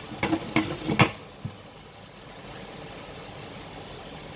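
Four quick knocks of a utensil against cookware in the first second and a half, then a steady low hiss of cooking on the stove.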